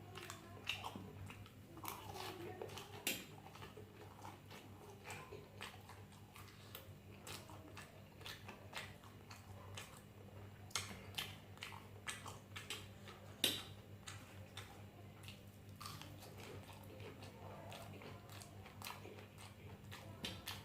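Close-up chewing and biting of food, most likely sausage, with many short wet mouth clicks and smacks at irregular intervals over a steady low hum.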